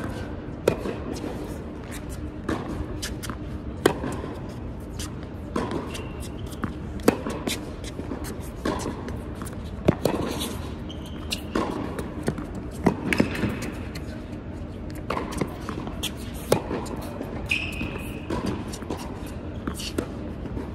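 Tennis rally on an indoor hard court: racquet strings striking the ball and the ball bouncing, as sharp pops every second or so that echo in the large hall, with a few short shoe squeaks.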